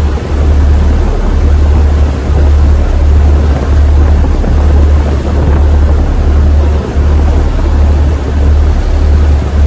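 The ferry New Kasaoka under way: a loud, steady low rumble of engine and hull that wavers and dips briefly now and then, with wind noise on the microphone.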